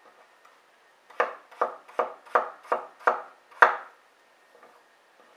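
Kitchen knife chopping a peeled potato into small dice on a wooden cutting board: seven quick strokes, a little under three a second, starting about a second in and stopping a little before the end.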